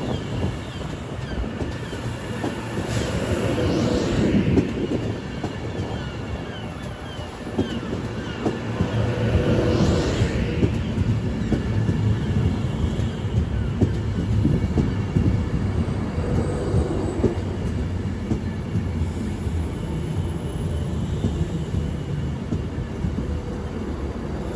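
Class 390 Pendolino electric train running into the platform with a steady low rumble and clicking wheels over the rail joints. Faint short squeals come in the first few seconds.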